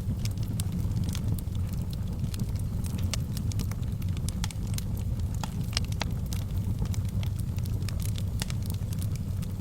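Fire burning in a fireplace: a steady low rumble of flames with frequent sharp crackles and pops at irregular intervals.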